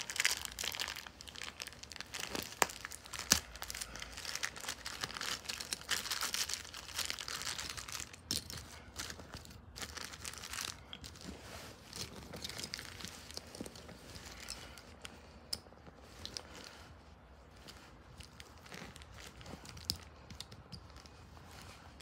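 A crinkly plastic wrapper being torn open and crumpled by hand, with a few sharp crackles, loudest in the first several seconds. It then settles into softer rustling and light clicks of small plastic toy pieces being handled.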